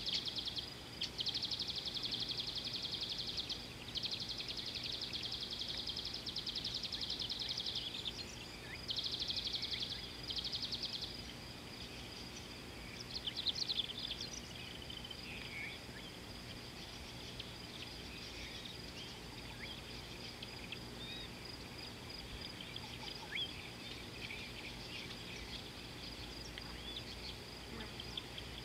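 Insects buzzing high and shrill in pulsing bursts a few seconds long through the first half, then a fainter steady insect chorus with scattered short bird chirps.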